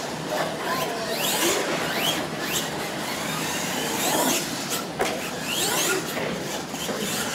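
Radio-controlled monster truck's motor whining up and down in pitch as the throttle is worked, over the rush of its tyres on dirt. There is one sharp knock about five seconds in.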